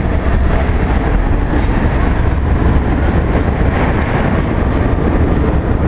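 Vintage R1-9 subway car running through a station, heard from inside the car: a steady, loud rumble of wheels on rail and running gear.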